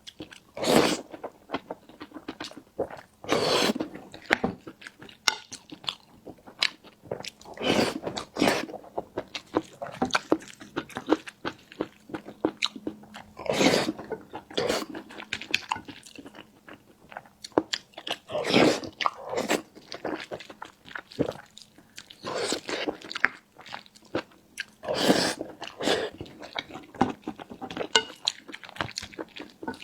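Close-miked eating: irregular chewing and biting sounds, with a louder burst every few seconds.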